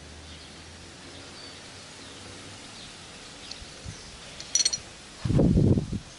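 Outdoor garden ambience with faint bird chirps. A short sharp click about four and a half seconds in, then a loud low rush lasting under a second near the end.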